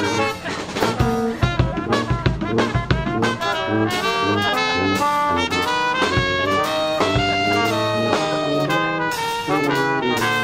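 Live brass band playing: brass carries the tune over a sousaphone bass line, with drum-kit hits throughout.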